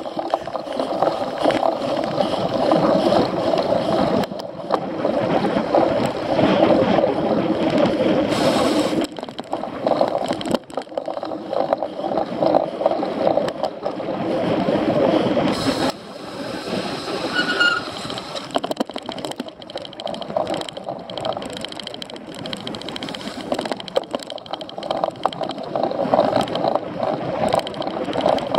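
Cyclocross bike ridden hard over a rough race course, heard from a camera mounted on it: a continuous rattling rush of tyres, frame and drivetrain, broken by knocks from bumps in the ground.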